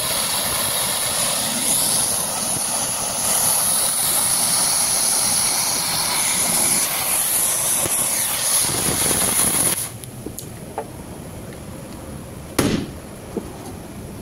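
Oxy-acetylene torch flame hissing steadily as it heats a car's rear wheel hub and bearing to loosen them. It cuts off suddenly about ten seconds in, and a single sharp knock follows a few seconds later.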